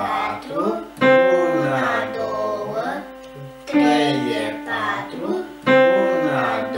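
Piano, single notes played slowly by a young beginner: three notes struck about a second, three and a half and five and a half seconds in, each held and ringing for about two seconds. A voice is heard over the notes.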